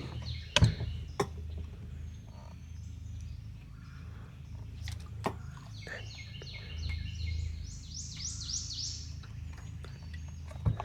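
A songbird singing a quick run of repeated short, high, down-slurred notes for a few seconds in the second half, over a steady low hum, with a few sharp clicks and knocks from handling gear in the boat.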